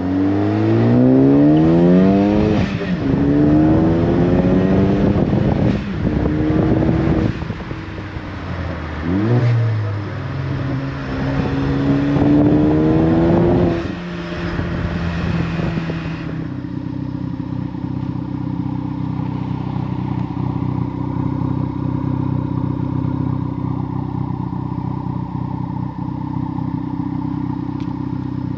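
2015 Ford Focus ST's turbocharged 2.0-litre four-cylinder through a Hooker Blackheart 3-inch stainless catback exhaust, heard from inside the car while accelerating, the revs climbing and dropping back at several upshifts. After about sixteen seconds it is idling steadily, heard from behind the car.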